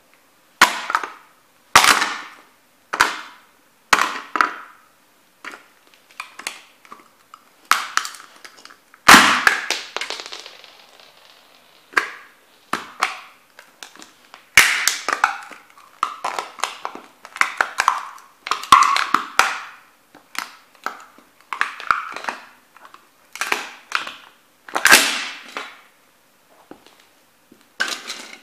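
Sneakers stomping on and crushing a small plastic-and-metal toy truck: a string of sharp cracks and crunches, roughly one a second. The loudest hit comes about nine seconds in and rings on for about a second.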